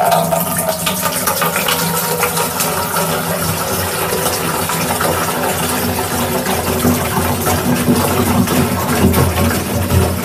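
Water poured steadily from a large plastic bottle through a funnel into the tank of a garden pump sprayer, filling it.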